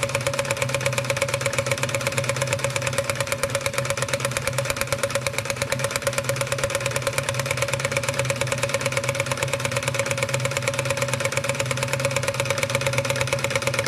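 Wilesco D145 model steam engine running steadily, its flywheel driving belts to the workshop models, with a fast, even mechanical beat.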